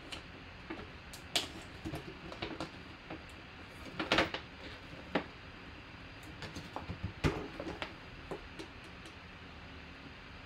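Clear hard-plastic display case of a mini football helmet handled and turned over in the hands, giving irregular plastic clicks and knocks. A few louder knocks fall about a second in, about four seconds in and about seven seconds in.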